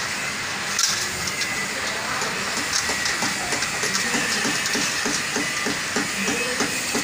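A steel collapsible gate being pulled closed along its track, its folding metal lattice and rollers rattling and clicking, with a clank about a second in, over a steady hiss.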